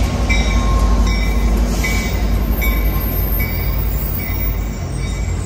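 Amtrak F59PHI diesel locomotive and its bilevel passenger cars rolling past close by as the train arrives at the station: a steady, loud low rumble of engine and wheels, with a faint high tone recurring about twice a second.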